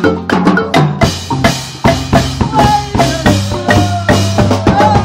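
A marimba band playing an upbeat piece on wooden marimbas backed by a drum kit, the kick and snare prominent in a steady beat.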